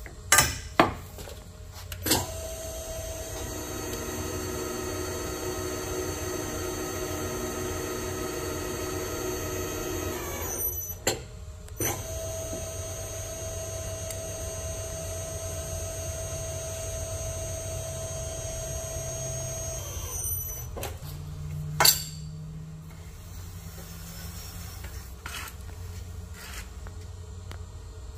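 Nargesa CC90 tube bender's drive running steadily with a whine for about eight seconds as the bend die pulls the tube through a bend, then, after a short pause with a couple of clicks, running again for about eight seconds on its automatic return. A few sharp clicks from clamping at the start, and a single loud clank about two-thirds of the way through.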